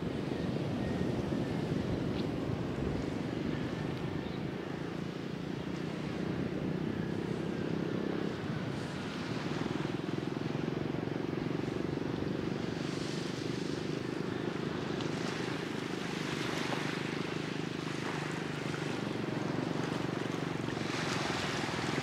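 An engine drones steadily at a distance, a low even hum that hardly changes. A soft rushing noise swells a few times in the second half.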